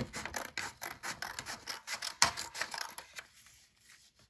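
Scissors cutting through a sheet of paper: a quick run of crisp snips and rasps, with one sharper snip about two seconds in, stopping about three seconds in.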